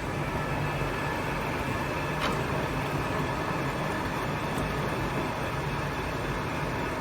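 Large Victor gap bed engine lathe, driven by a 20-horsepower motor, running under power with a steady mechanical hum from its headstock gearing and drive, with a faint tick about two seconds in.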